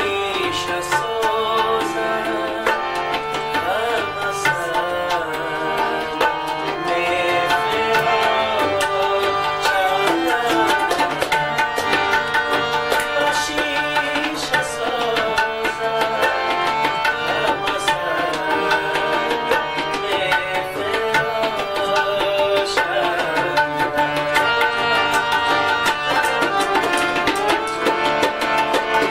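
Tabla played in a fast, continuous rhythm with dense strokes on both drums, over a harmonium holding sustained reedy notes and a melody.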